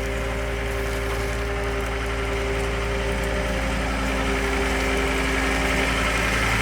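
John Deere 325 skid steer's diesel engine running steadily at idle, growing a little louder near the end; it sounds healthy.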